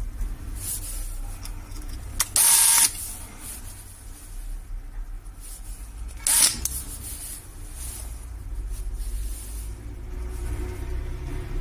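Electric precision screwdriver driving small screws into a phone's frame, its small motor running with a steady low hum. Two brief, much louder bursts come about two and a half and six seconds in.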